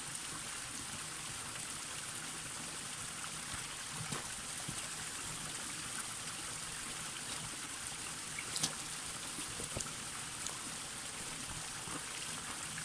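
Spring water trickling steadily down a mossy rock face and splashing over cupped hands, with a few brief louder splashes.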